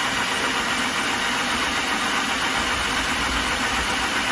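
2005 Mazda RX-8's rotary engine turning over with a loud, steady mechanical noise, in an attempt to start a car that cranks but won't stay running.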